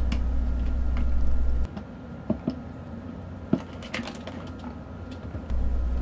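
Scattered light clicks and taps of a screwdriver working the cover screws of a limit switch and of the switch housing being handled. Under them runs a steady low hum that drops away after a couple of seconds and comes back near the end.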